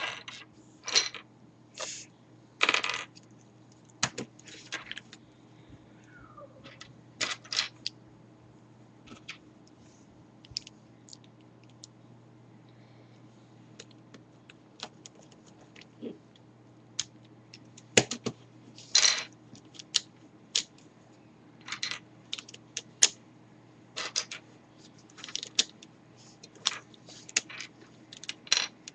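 Plastic pieces of a V-Cube 5 puzzle clicking and clacking as they are handled and fitted into place, in irregular sharp clicks with pauses between them, over a faint steady low hum.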